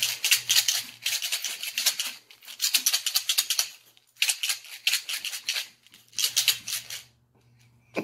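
Milk chocolate M&M's Minis rattling inside their pack as it is shaken, in about five bursts of rapid clicking.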